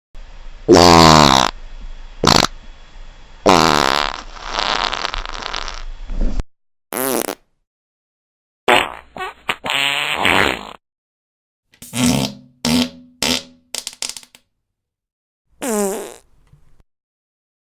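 Fart sound effects from a fart sound app, played one after another with silent gaps between. Some are long and fall in pitch, some are short sputters, and about two-thirds of the way through comes a quick string of short ones.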